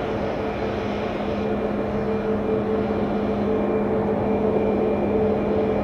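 Boeing 737 taxiing past with its twin jet engines at idle: a steady rushing sound carrying a low hum and a higher steady tone.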